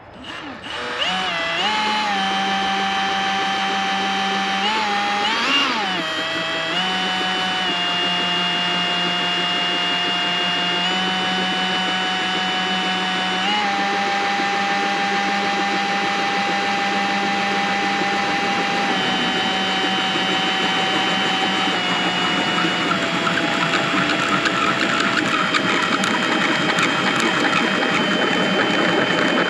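Cordless drill running steadily as it bores through a boat windshield with a special drill bit, starting about a second in. The motor whine holds nearly level with small shifts in speed, kept in check so the bit neither catches nor cracks the windshield.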